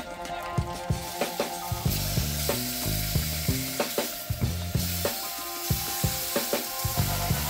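Sausages and meat slices sizzling in an electric skillet. The hiss gets louder about two seconds in as more meat is laid into the hot pan.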